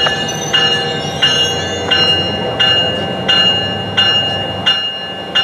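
An NJ Transit train's warning bell ringing steadily as it pulls into the station, one strike about every 0.7 seconds. The train's low engine hum runs underneath.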